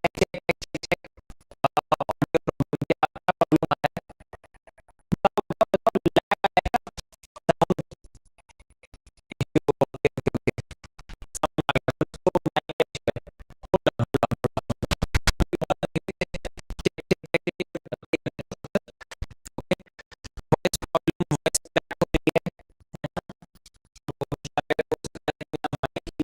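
A man's voice on a lagging live stream, broken into a rapid stuttering, buzzing glitch of repeated fragments, like record scratching, in bursts of a few seconds with short gaps between.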